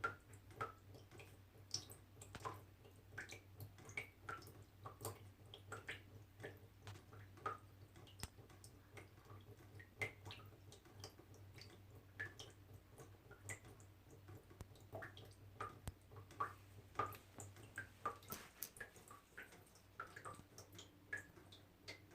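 Small water drops dripping irregularly, a couple of drops a second, each a short plink at a slightly different pitch. A faint low hum underneath stops about three-quarters of the way through.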